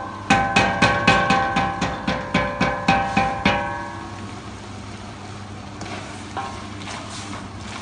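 Wooden spoon knocking against a large stainless steel stockpot while stirring, about four strikes a second, each with the same metallic ring. The knocking stops about halfway, leaving quieter stirring of the onions.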